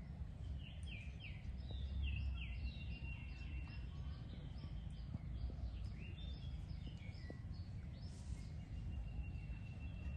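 Rapid high-pitched chirping calls, several a second, each falling in pitch, with a thin held whistle now and then, over a steady low rumble.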